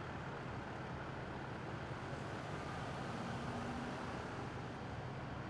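Steady low hum of idling vehicle engines over street traffic noise, with a car driving past about four seconds in.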